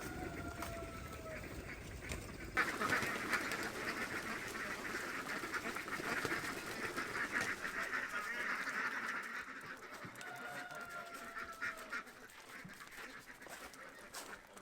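A flock of domestic ducks calling loudly together as they come out of their house. A longer, slightly falling honk-like call sounds once at the start and again about ten seconds in.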